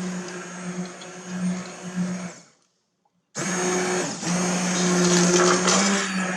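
Handheld immersion blender running in a pot of soup, a steady whir as it blends cream into the puree. It cuts out about two and a half seconds in, then starts again under a second later.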